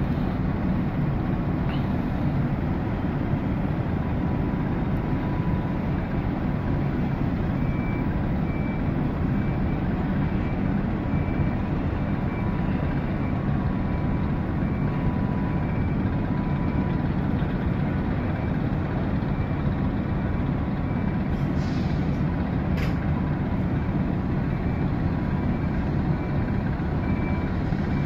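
Grimaldi ferry Catalina's diesel engines and funnel exhaust running steadily at berth, a deep even rumble heard on the open deck. A faint repeated beeping comes and goes behind it.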